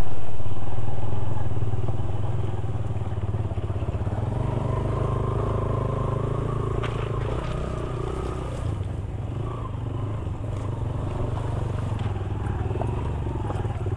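Motorcycle engine running as the bike picks its way along a rocky streambed, loudest at the start and easing off over the first couple of seconds, with a few short knocks from the stones.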